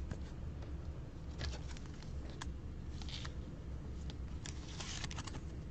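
Faint handling noise from trading cards and plastic card holders: a few scattered light clicks and short scrapes over a low steady background hum.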